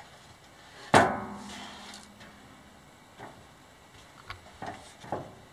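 A single loud metal clank about a second in, ringing briefly, as a metal part is set down against the lumber mill's steel frame, followed by a few lighter knocks and taps.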